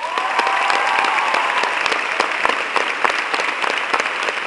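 A theatre audience and the cast applauding loudly after a thank-you, a dense clatter of many hands, with a voice calling out over it during the first second and a half.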